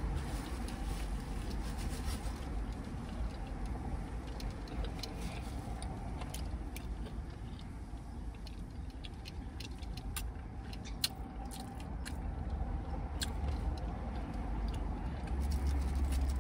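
Someone eating: scattered small clicks and rustles of chewing and handling food over a steady low hum, with one sharper tick about eleven seconds in.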